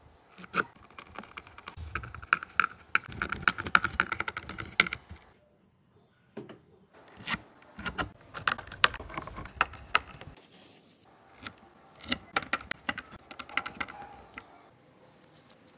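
Screws being driven by hand with a screwdriver into a PVC base: rapid clicking and creaking, with a squeak in the first burst, in three bursts separated by short gaps about five and ten seconds in.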